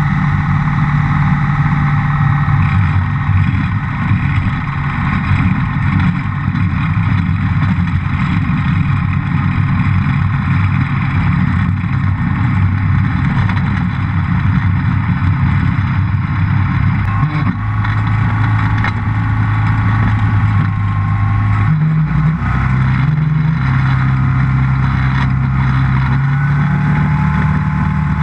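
Rans S7S's Rotax 912 four-cylinder four-stroke engine and propeller running steadily at low power while the plane taxis on the ground. In the last third the engine speed steps down and up a few times as the throttle is adjusted.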